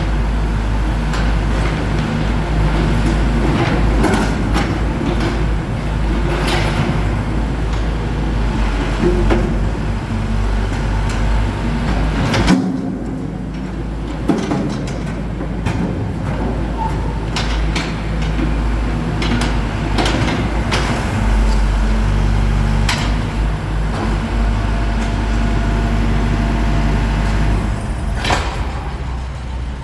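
Caterpillar 420 backhoe loader's diesel engine running steadily under work, with scattered knocks and clanks from the bucket working concrete and a sharp bang about twelve seconds in.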